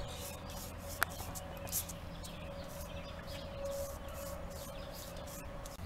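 Soft, faint scratchy strokes of a watercolor paintbrush on paper, repeating irregularly, over a steady low hum and a faint steady tone. One sharp click about a second in.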